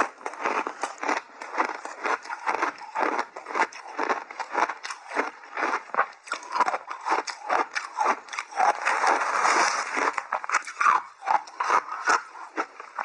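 Crunchy shaved ice coated in matcha and milk powder being dug into with a metal spoon: rapid, irregular crunching and scraping, several crunches a second.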